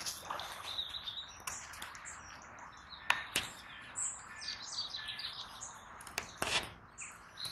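Small birds chirping and twittering in short, high calls. Two pairs of sharp knocks stand out, about three seconds in and again about six seconds in.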